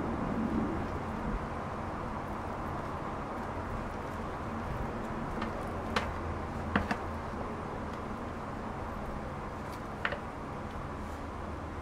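A metal spoon clicking a few times against a plastic tub and bamboo leaf as pork filling is scooped into a rice-filled leaf cone, over steady background hiss. Three short, sharp clicks fall about halfway through and once more near the end.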